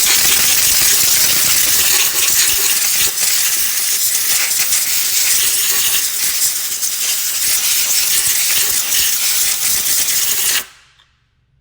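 Pressurised air blowing in a loud, steady hiss, drying brake cleaner off the scooter's rear suspension joints; it cuts off suddenly about a second before the end.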